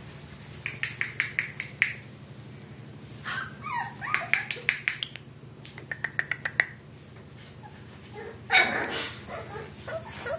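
Young puppies yapping and barking at play in quick runs of short, high yaps, with one louder bark about eight and a half seconds in. A steady low hum runs underneath.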